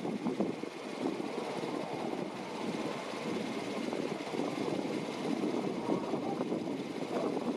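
Jet airliner engine noise at an airport, a steady rush without speech.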